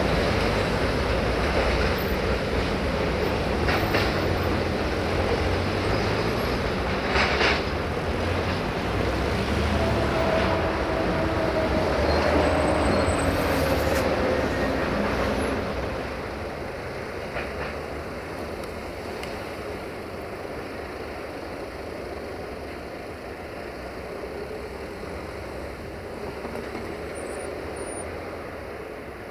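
Freight train hopper wagons rolling away along the track, with the wheels running over the rails. A thin wheel squeal comes in briefly around the middle, and the rolling dies down to a fainter sound about halfway through as the train draws off.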